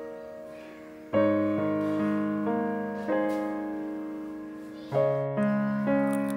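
Background piano music: slow chords struck every second or two, each ringing and fading away.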